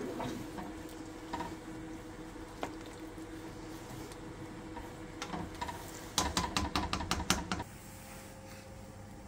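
Wooden spoon stirring a thick stew in a stainless steel pot, knocking against the pot's side with scattered clicks, then a quick run of about ten taps about six seconds in.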